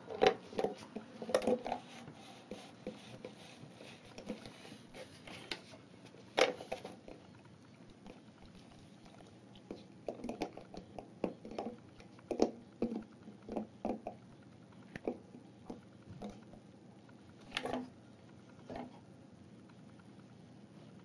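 Irregular taps and knocks in a small room, scattered and uneven, with a few louder knocks near the start, about six seconds in and near the end.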